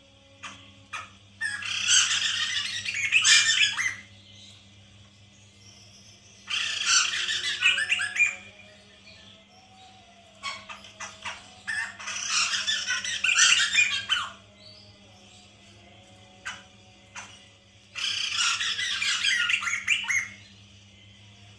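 Masked laughingthrush giving four loud bursts of harsh, chattering calls, each about two to three seconds long. Faint short notes and clicks fall between the bursts.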